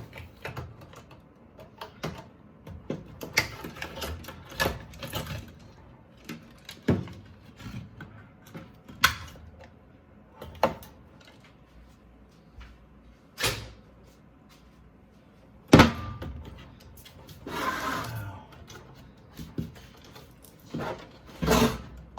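Irregular clicks, knocks and clattering of a portable ice maker's plastic and sheet-metal parts being handled and pulled apart by hand, with short stretches of scraping and one loud knock about sixteen seconds in.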